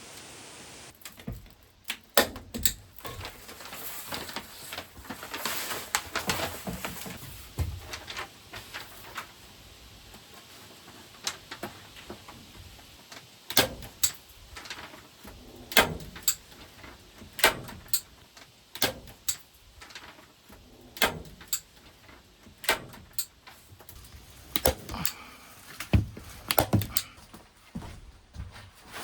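A series of sharp wooden or hard knocks and clacks, about one every second or so in the second half, with rustling and handling noise between them earlier on.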